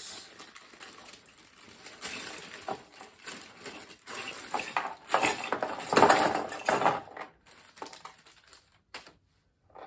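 Plastic packaging crinkling and rustling as small bags of parts are handled and opened, with many small crackles; it is loudest around two-thirds of the way through, then stops, leaving a few isolated clicks.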